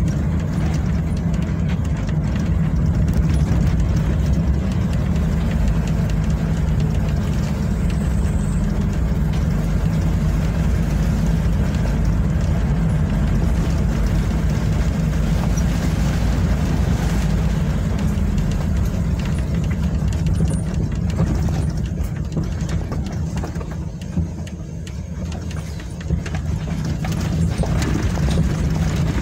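Vehicle engine running steadily on the move, with road noise over it. The sound drops briefly about 24 seconds in, then picks up again.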